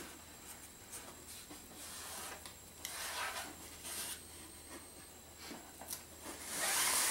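Fingers rubbing masking tape down onto a model rocket's fin and cardboard body tube, a few soft irregular scrapes, with a louder scrape near the end.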